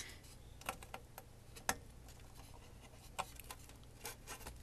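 Scattered light clicks and taps of metal alligator-clip test leads being unclipped from a capacitor and handled, about half a dozen over a few seconds, over a faint low hum.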